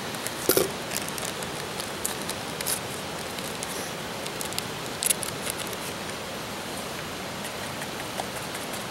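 A small paper drink-mix packet being handled and torn open, crinkling in sharp clicks and rustles, the loudest about half a second and five seconds in, then tipped into a metal mug. A steady hiss runs underneath.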